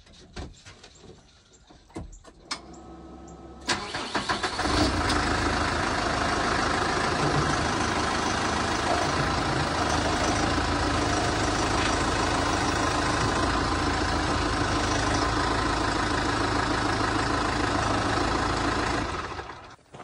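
A few knocks, then a New Holland tractor's diesel engine cranks and starts about three to four seconds in and runs steadily.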